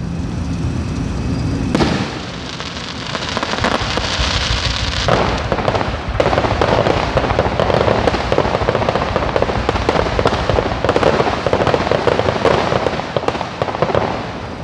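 Aerial fireworks: a shell bursts about two seconds in, then from about five seconds in a long, dense crackling of many tiny pops runs until near the end.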